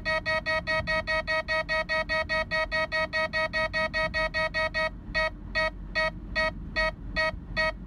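Radenso Pro M radar detector beeping a Ka-band radar alert: rapid even beeps, about five a second, that slow to about two and a half a second near five seconds in as the signal weakens.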